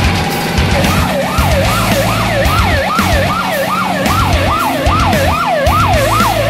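Electronic vehicle siren in a fast up-and-down yelp, about two and a half sweeps a second, starting about a second in, over a low rumble.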